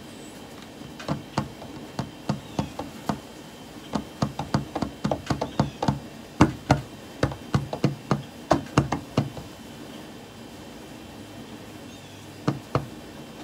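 Fingers tapping on a tabletop: an irregular run of sharp taps for about eight seconds, then two more taps near the end.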